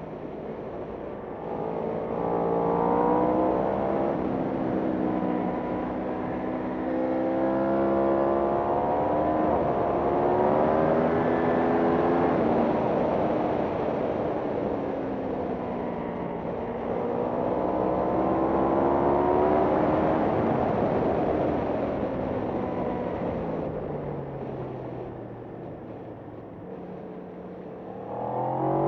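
Racing motorcycle engine under hard acceleration, its pitch climbing and dropping back in steps as it shifts up through the gears. Pitch falls away twice as it slows for corners, then climbs sharply again near the end.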